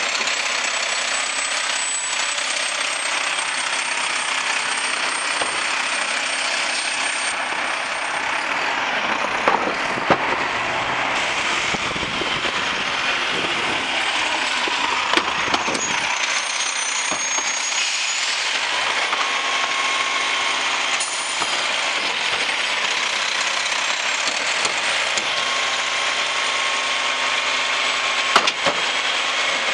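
Mack LEU garbage truck with a Labrie side-loader body running at the curb: a steady engine and hydraulic noise with a faint high whine that rises and falls. A few sharp knocks come through, the loudest near the end.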